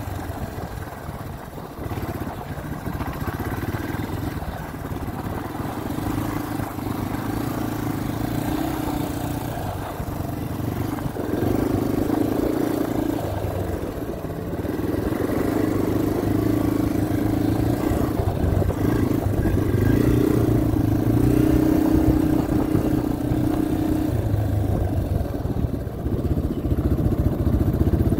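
Dirt bike engine running at low speed close to the microphone, its note rising and falling with the throttle in stretches of a few seconds and getting louder toward the end.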